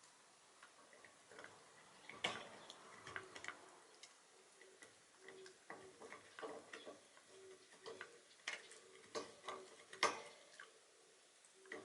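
A Shiba Inu gnawing on a horse-hoof chew: irregular clicks and scrapes of teeth on hard hoof, with sharper cracks about two seconds in and near the ten-second mark.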